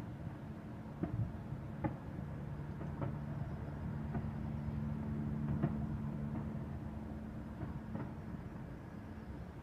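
Distant fireworks going off, sharp bangs arriving at irregular intervals about once a second, over a steady low rumble and hum that swells in the middle.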